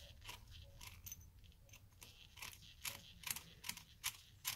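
Faint metallic clicking as a screw extractor (easy out) is turned by hand to back a sheared bolt out of a gear-drive pump housing. The clicks come irregularly at first, then about two to three a second from around halfway.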